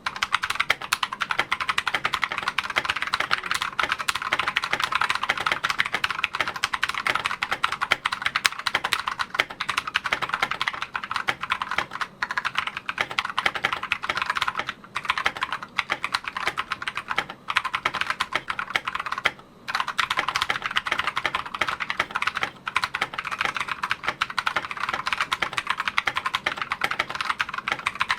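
Fast, continuous typing on a custom TM680 mechanical keyboard with AKKO Rose Red linear switches lubed with Krytox 205g0, a foam- and masking-tape-modded case, and PBT XDA keycaps. The keystrokes run as a dense stream of clicks, with a couple of brief pauses.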